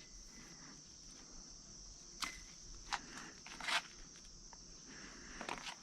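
Faint, steady high chirring of insects such as crickets, with a few short clicks and rustles from about two to four seconds in.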